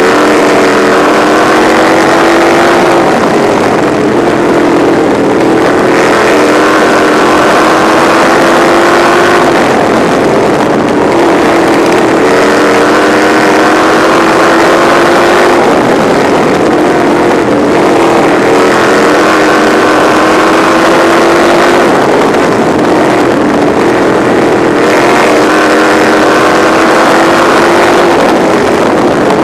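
Race car engine heard from on board the winged sprint-style lights car, running hard. Its pitch climbs for a few seconds, then drops back and climbs again, about every six seconds, over steady wind and road noise.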